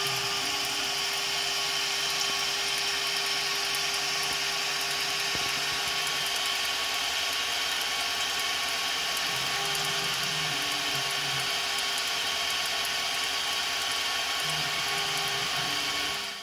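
DMC2 CNC milling machine's spindle running a chamfer tool along the edge of a 4140 alloy steel wrench, a steady hiss with a steady tone under it, while the cutter takes a very light chamfer cut under coolant spray. It cuts off suddenly at the end.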